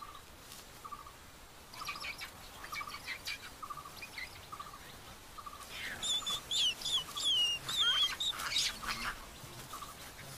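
Birds chirping in forest ambience: a soft short note repeats about twice a second, and from about six seconds in a louder run of quick, gliding chirps and whistles.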